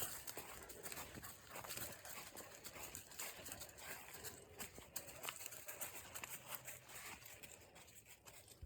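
Faint, irregular crunching footsteps on a forest trail, leaf litter and twigs crackling underfoot, trailing off near the end.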